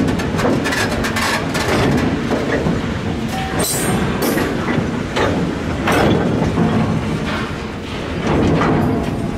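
Narrow-gauge KF40 side-dump hopper wagons rolling past close by: a steady rumble of wheels on rail, with repeated clacks and knocks over the rail joints. A brief high squeal comes about three and a half seconds in.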